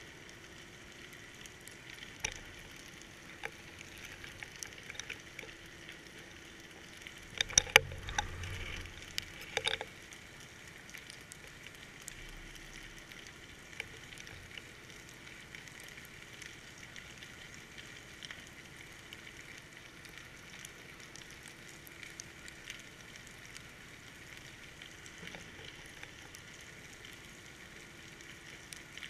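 Underwater ambience heard through a GoPro's waterproof housing: a steady fine crackling, with a cluster of sharp knocks and a dull thump about seven to ten seconds in.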